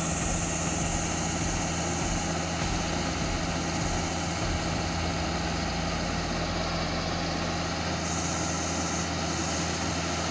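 Rice combine harvester running steadily: an even engine drone with a constant low hum.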